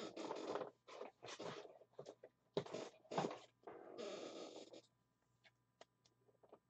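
Faint plastic rustling and sliding as a trading card is handled in a card sleeve: several short scrapes, a longer one about four seconds in, then a few light ticks near the end.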